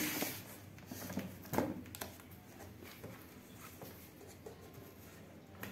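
A cardboard box being shifted and handled, with a brief scraping rustle at the start and a sharper knock about a second and a half in, followed by faint small clicks as scissors work at the packing tape on the box.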